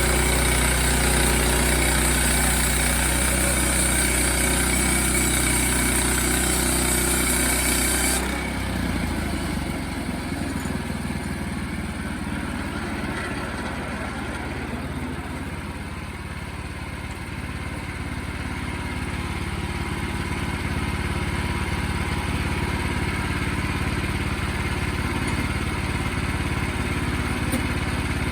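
Sawmill engine running steadily. About eight seconds in, a loud high hiss stops abruptly and the engine settles to a lower, quieter run.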